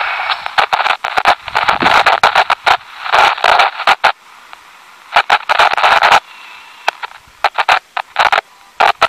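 Linden vintage AM alarm clock radio being tuned across the band: snatches of station audio and static come and go through its small speaker, broken by crackles and sudden dropouts, thinner and quieter in the second half.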